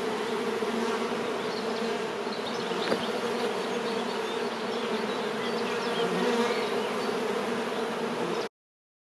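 Honeybee colony in an open hive buzzing, a steady hum that cuts off suddenly near the end.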